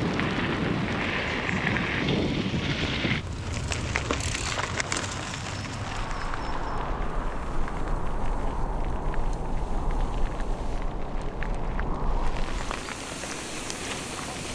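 Steady rush of wind on the microphone while cycling, with tyres rolling over a rough trail surface and giving scattered crackles and clicks.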